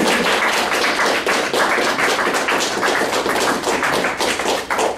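Audience applauding: many hands clapping in a dense, steady run that dies down near the end.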